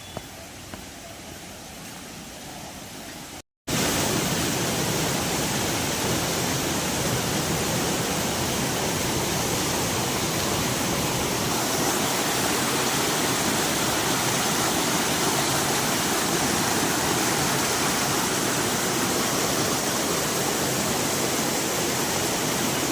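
Bamni Falls waterfall rushing. A fainter wash of noise for the first few seconds, then after a brief cut a much louder, steady rush of falling water.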